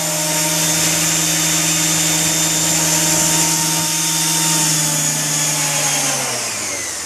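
Walkera V120D02 micro helicopter's 005 motor and rotor whining steadily at a head speed of around 4,000 RPM, then spinning down over the last two seconds with the pitch falling.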